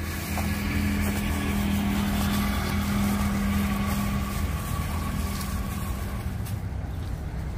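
A motor vehicle's engine running with a steady hum, fading out about six seconds in.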